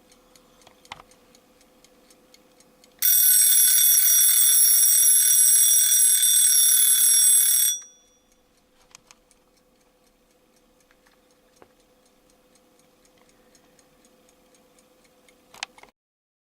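Bradley alarm clock ticking, then its alarm rings loudly for about five seconds, starting about three seconds in, and cuts off. Faint ticking follows, with a click near the end.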